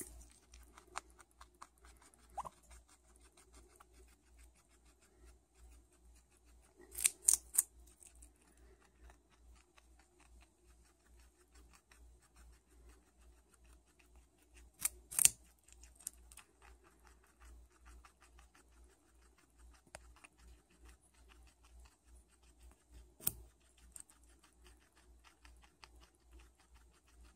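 Guinea pig gnawing a hand-held carrot: a fast, steady snipping crunch of its incisors biting off small pieces. A few louder crunches stand out, a quick cluster about seven seconds in and single ones at about fifteen and twenty-three seconds.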